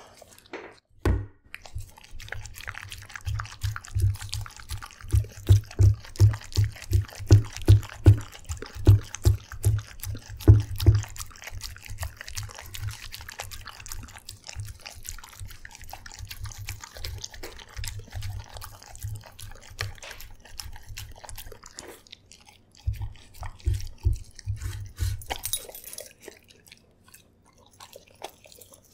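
Dog (corgi, sheltie and beagle mix) eating wet porridge-and-soup food from a stainless steel bowl close to the microphone: rhythmic wet chewing and lapping, about two strokes a second. The strokes are loudest in the first half, ease off in the middle, and pick up again near the end.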